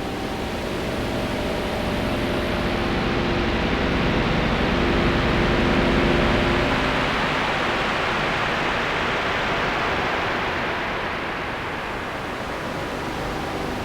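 Korg opsix FM synthesizer playing a noisy, airy patch through a shimmer reverb, with a few faint held notes under a dense wash of noise. It swells to its loudest about six seconds in, then eases off.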